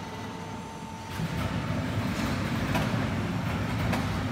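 Low steady rumble of factory machinery, growing louder about a second in, with a few faint clicks near the end.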